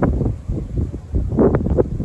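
Strong wind buffeting the microphone in gusts, with tree leaves rustling; the gusts swell around the start and again about a second and a half in.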